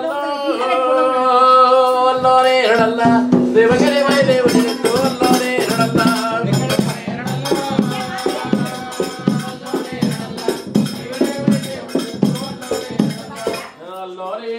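Music: a sustained melody line with held, wavering notes over a steady, quick percussion beat that comes in a few seconds in.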